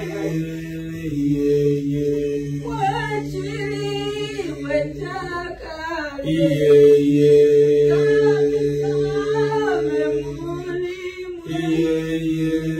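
A worship song sung a capella by several voices, with long held notes that change about every five seconds beneath a wavering melody line.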